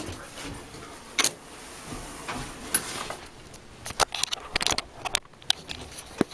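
Scattered clicks, knocks and small clatters of objects being handled at irregular intervals, busiest about four to five seconds in.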